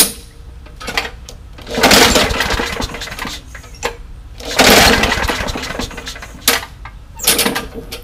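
Craftsman push mower's small single-cylinder engine being pull-started with its air filter off: it catches twice, running for about a second and a half each time before dying, then gives two short sputters near the end. The engine is missing several of its screws and bolts, so it shakes and rattles as it fires.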